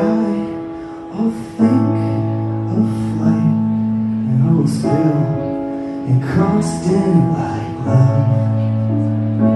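Live band music: held keyboard chords over a sustained bass note, the chord changing every two to three seconds, with a wavering melody line in the middle and light cymbal ticks on top.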